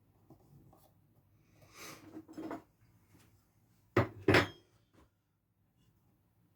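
Tools and parts being handled on a workbench: a short rustling scrape, then two sharp knocks in quick succession and a faint click.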